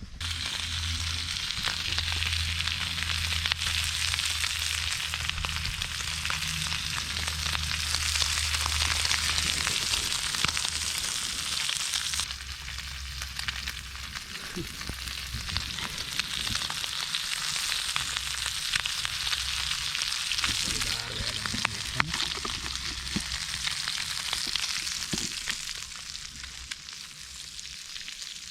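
Meat frying and sizzling in a pan, a dense crackling hiss, with a low hum underneath for much of it.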